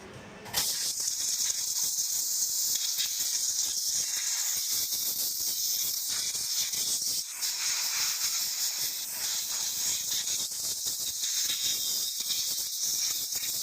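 A steady hiss that starts about half a second in and holds, with faint irregular ticking.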